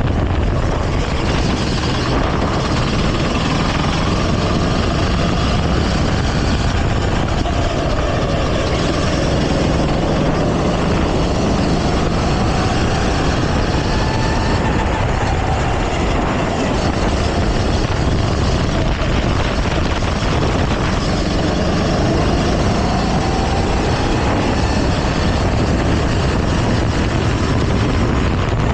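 Go-kart engine running continuously under load, its pitch rising and falling slowly as the revs change.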